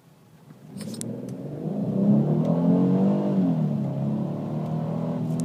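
Porsche Cayenne engine accelerating, heard from inside the cabin: it starts about a second in, its pitch climbs as the revs rise, then falls back and holds steady.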